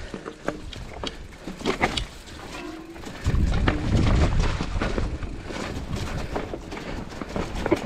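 Clatter and knocks of an electric mountain bike rolling over a rocky trail, with gusty wind rumbling on the microphone that gets stronger about three seconds in.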